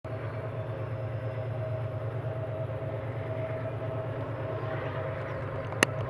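GE BB36-7 diesel-electric locomotives working hard as they haul an empty freight train up a grade: a steady, pulsing low engine rumble with a steady tone above it. There is a single sharp click near the end.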